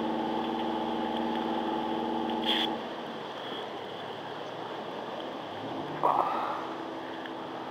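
An engine running with a steady hum, which cuts out about three seconds in and leaves a low steady rumble. There is a short clink just before the hum stops, and a brief loud knock about six seconds in.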